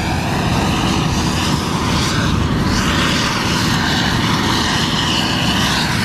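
Steady drone of a combine harvester threshing soybeans in the field, heavily mixed with wind buffeting the microphone.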